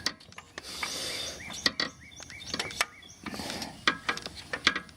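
Ratchet wrench with a deep-well socket working the oil pressure sensor loose: scattered sharp clicks and scraping of metal on metal.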